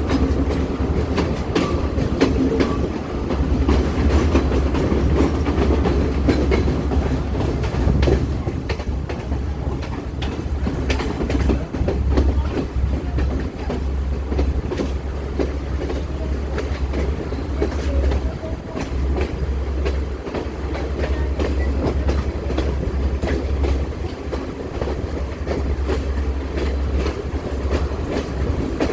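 Passenger train running along the rails: a steady rumble with the irregular clicks and clatter of wheels over rail joints.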